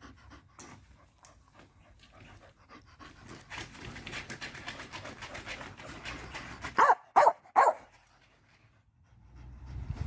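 A dog panting quickly, then giving three short, loud barks in quick succession.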